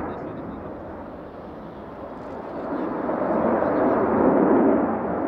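Twin turbofan engines of an F/A-18C Hornet in display flight: a loud rushing jet noise that fades about a second in, then swells again to its loudest around four seconds.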